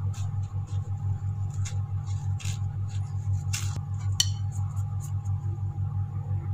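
Light scrapes and clicks as a freshly fried donut is rolled in sugar on a ceramic plate and set down on a wire cooling rack, the sharpest click a little after the middle. Under it runs a steady low hum with a quick even pulse.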